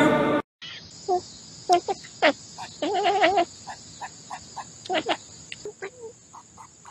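A cat chirping in short pitched calls, with a wavering trill about three seconds in. A steady high insect buzz runs behind, and a snatch of chanting music cuts off right at the start.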